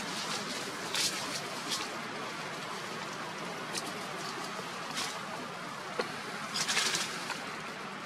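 Dry leaves rustling and crackling in short bursts as long-tailed macaques scuffle in the leaf litter, over a steady background noise.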